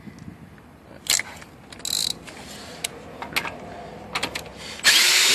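Metal clicks as a cordless drill's socket adapter is fitted onto a car wheel's lug nut, then a loud half-second burst near the end as the Milwaukee drill is triggered against the nut.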